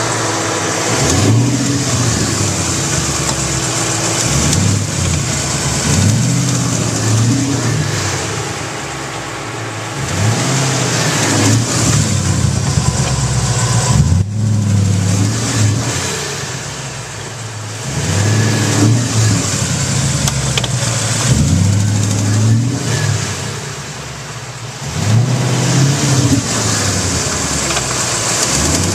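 2011 Ford Mustang's 5.0 V8 engine running and blipped up in revs and back down about six times, with the ticking noise the owner finds worst after an oil change. A Ford engineer traced the noise to the number 2 main bearings.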